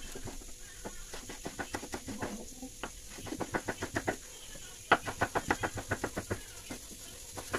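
Kitchen knife chopping fresh ginger into thin strips on a wooden cutting board: quick runs of sharp taps, several a second, broken by short pauses.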